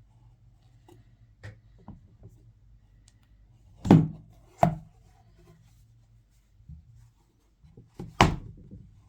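Hard items being handled on a table during an unboxing of an iPad Pro Magic Keyboard: a few light clicks, then two sharp knocks about four seconds in and another near the end.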